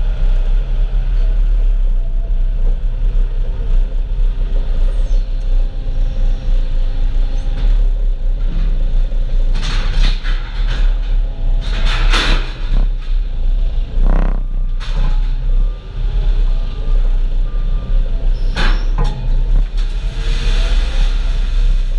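Engine of heavy farm machinery running steadily with a low rumble while a feed mixer is loaded, with a few short bursts of hissing noise between about ten and thirteen seconds in and again near the end.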